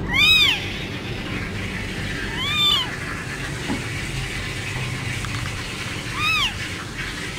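Newborn kitten mewing three times, each a short high cry that rises and falls in pitch, a few seconds apart, over a steady low background noise.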